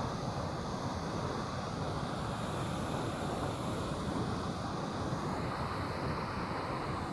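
Steady rush of turbulent water pouring through a dam or weir outflow and churning into white water.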